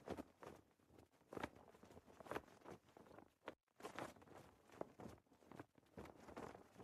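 Very faint, irregular soft flapping and rustling of a flag fluttering in the wind, with a brief complete drop-out about three and a half seconds in.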